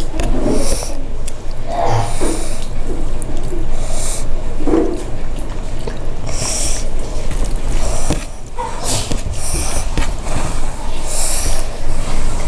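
Close-miked eating sounds: wet chewing and smacking, with a sharp sniffing or hissing breath every few seconds.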